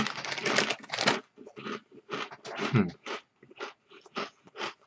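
Utz chips being crunched and chewed close to the microphone: a dense bite over the first second, then a run of short, irregular crunches.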